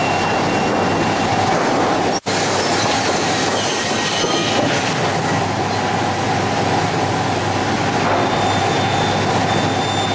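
Sawmill machinery, including a chain-driven roller conveyor, running with a loud, steady din. The sound cuts out for an instant about two seconds in.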